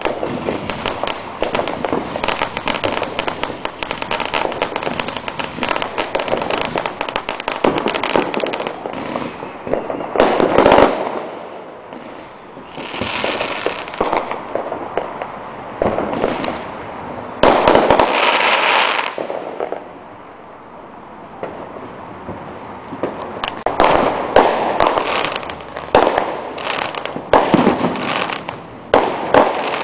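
Neighbourhood fireworks going off: dense crackling strings of pops for the first ten seconds, louder bursts about eleven and eighteen seconds in with a hissing rush between them, a quieter spell, then rapid popping again near the end.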